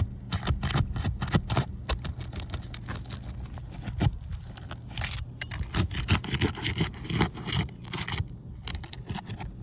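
Metal roof snake scraping and clicking under asphalt shingles as it hooks and pulls a roofing nail, a dense run of small scrapes and clicks. A steady low hum runs underneath.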